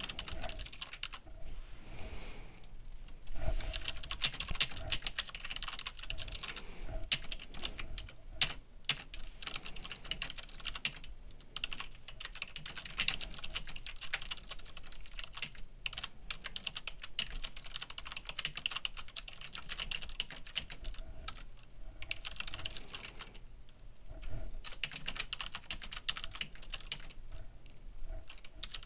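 Typing on a computer keyboard: fast, uneven keystroke clicks with a few brief pauses, as a label and a sentence are typed in.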